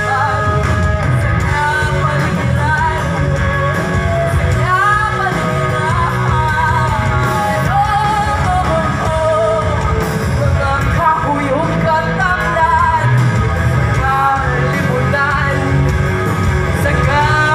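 All-female rock band playing live over a PA: a woman singing lead over electric guitars and drums, heard from the audience.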